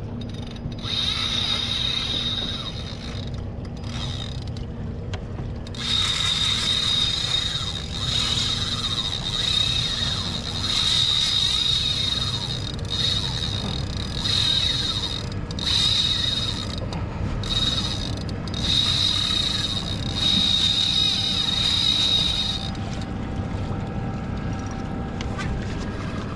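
Spinning reel's drag buzzing with a high steady whine as a big fish strikes and runs, pulling line off the spool. It goes in runs with short breaks and stops a few seconds before the end.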